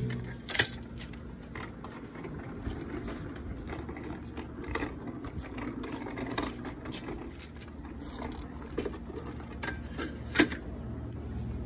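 Wheels of a wheeled party speaker rolling and rattling steadily over a concrete patio as it is pulled by its trolley handle, with scattered clicks and a sharp knock near the end.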